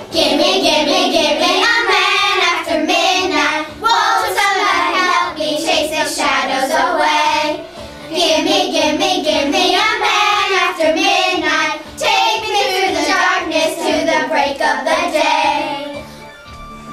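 Young girls singing into a studio microphone over a quieter backing track, in phrases of a few seconds with short breaths between; the singing stops about sixteen seconds in.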